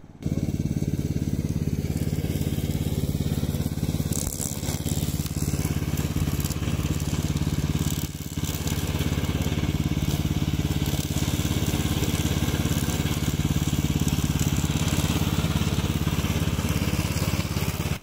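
Remote-control tracked lawn mower's small petrol engine running steadily at working speed while its blades cut through tall dry grass, with a dense crackling hiss of the cutting over the engine's drone. The sound drops briefly about eight seconds in.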